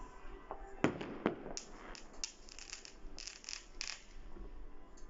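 Fireworks going off: two sharp bangs about a second in, then a run of quick crackling pops that stops about four seconds in.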